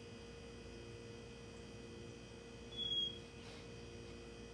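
A steady faint electrical hum in a quiet room. About three seconds in, a harlequin Great Dane gives one brief high-pitched whine, a sign of its frustration at being kept from the treats.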